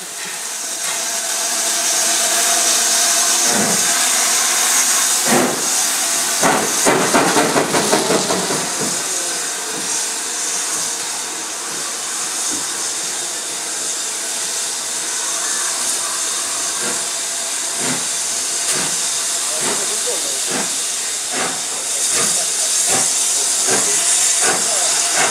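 BR Standard Class 7 'Britannia' Pacific steam locomotive starting its train away from a station. A steady hiss of steam from around its cylinders runs throughout. Heavy exhaust beats come a few seconds in, then a quicker run of beats, settling into softer rhythmic beats as the coaches roll past.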